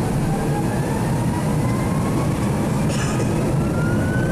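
Airbus A321 jet engines at takeoff power heard from inside the cabin: a steady low roar with two whining tones that rise slowly in pitch as the aircraft accelerates down the runway. A brief click about three seconds in.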